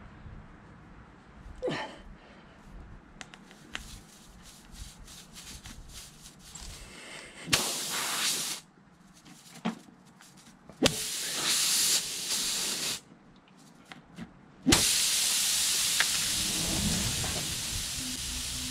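Air hissing out of the punctured rear tyre of a KTM 890 Duke R as a tyre-plug tool is worked in the hole: two short bursts, then a steady hiss from about three-quarters of the way in, with a few sharp clicks from the tool. It is air escaping through the puncture before the plug seals.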